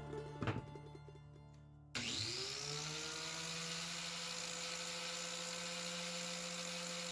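Angle grinder motor switched on at low level: a whine that rises as it spins up and then holds steady over a low hum.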